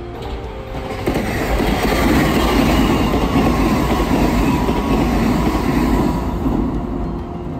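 Kintetsu electric train passing: rail and wheel noise swells in about a second in, stays loud for several seconds, then starts to fade near the end.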